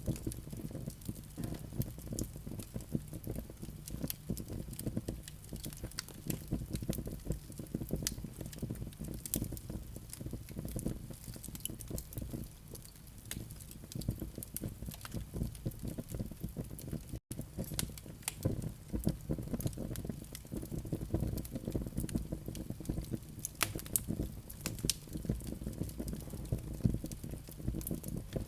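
Wood fire of live coals and flames crackling, with a steady low rumble under many small sharp pops and snaps. The sound drops out for an instant a little past halfway.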